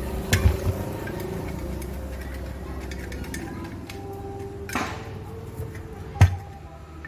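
Tools knocking and clinking on metal water pump parts during the bearing and seal repair: a few sharp knocks near the start, another a little before five seconds in, and the loudest just after six seconds, over a steady low hum.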